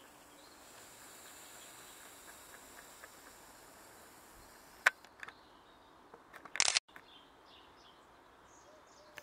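Faint outdoor background with small birds chirping briefly, mostly near the end. A single sharp click about five seconds in, and a short loud burst of noise a second and a half later.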